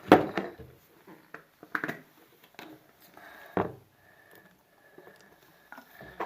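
A few scattered taps and knocks from a spoon against a plastic tub as slime ingredients are mixed, the sharpest right at the start.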